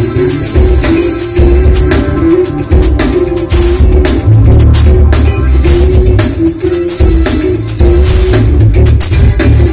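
Band music played loudly through a large outdoor stage PA system during a sound check: a drum kit and guitar over heavy bass.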